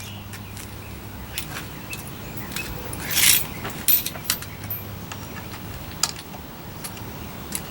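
Metal hand tools (sockets and wrenches) clinking and rattling as they are sorted through. Scattered sharp clicks, with one louder rattle about three seconds in.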